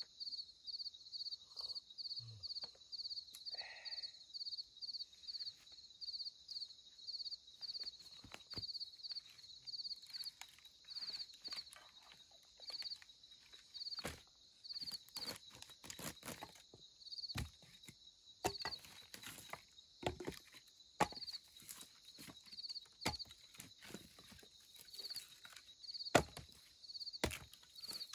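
Night insects chirping in a steady, high-pitched pulsing rhythm, a couple of pulses a second at first and slowing to about one a second later on. Scattered sharp clicks and knocks come in the second half; the loudest is a single knock near the end.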